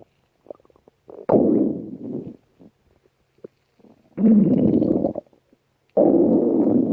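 Stomach growling: three growls of about a second each, with short pauses between them.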